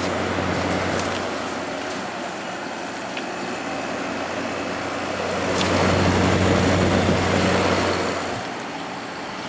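Hotpoint 8400 BTU window air conditioner running on its high fan setting: a steady hum under a rush of air. About five and a half seconds in, a louder rushing swell rises and fades over roughly three seconds.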